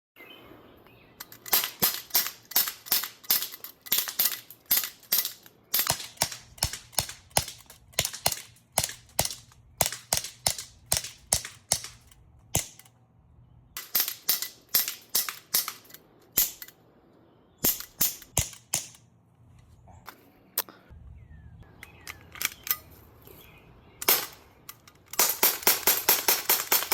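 Glock pistol firing in strings of sharp shots, about two to three a second, with short pauses between strings. Near the end comes a fast, even run of shots.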